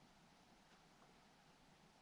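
Near silence: a faint steady hiss from a camera recording underwater, with a couple of very faint ticks.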